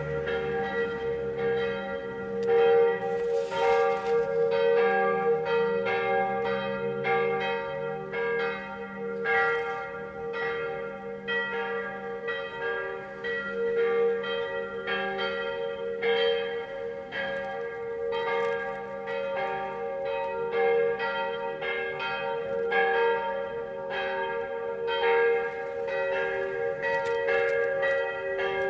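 Church bells ringing, struck over and over in a steady rhythm, their tones hanging on and overlapping into a continuous ring.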